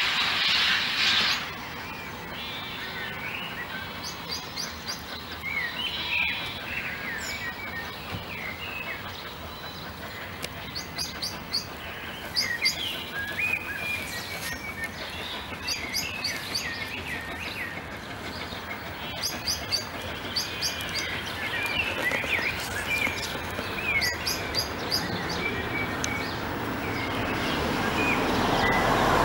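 Songbirds chirping and singing. A loud hiss from the steam locomotive cuts off suddenly about a second in. Over the last ten seconds or so the rumble of the approaching LNER A3 Pacific Flying Scotsman grows steadily louder.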